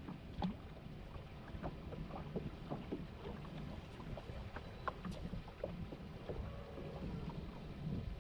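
Water lapping and splashing against a small boat's hull, with many small irregular splashes and knocks over a low rumble.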